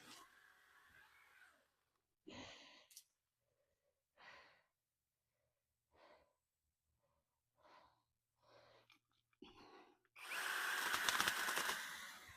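A string of short, breathy rustling noises every second or two, then a small electric saw runs in a loud burst of about two seconds near the end.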